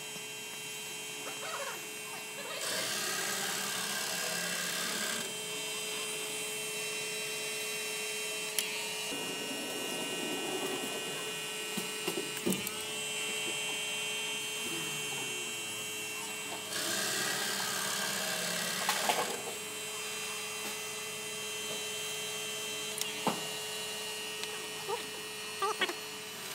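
Stepper motors of a robotic-arm 3D printer humming and whining as the arm drives the print head. A steady hum with several high whining tones runs throughout. Two louder stretches of rushing noise come in, about three seconds in and again past the middle, with a few faint clicks.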